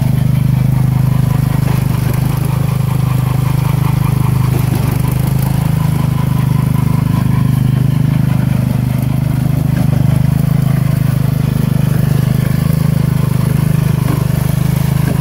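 16 hp Tecumseh OH160 single-cylinder engine of a 1970 Sears Suburban lawn tractor running at a steady speed as the tractor is driven.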